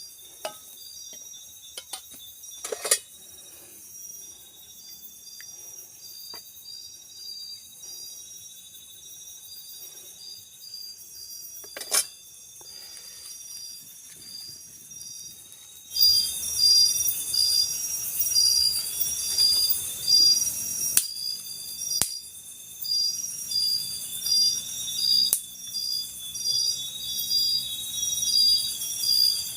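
Insect chorus in tropical forest: insects chirping in steady, evenly repeated high pulses. There is a sharp knock about three seconds in and another about twelve seconds in. A little past halfway the chorus suddenly becomes louder and fuller.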